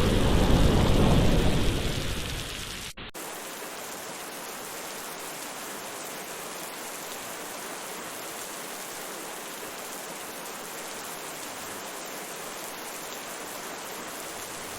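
Thunder dying away over rain in the first two to three seconds, then, after a brief dropout, steady forest rain alone.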